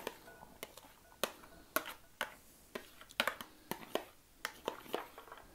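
Cooked soybeans being tipped from a plastic bowl into a glass Pyrex bowl: a string of light, irregular clicks and taps, about three a second, as beans and the plastic rim knock against the glass.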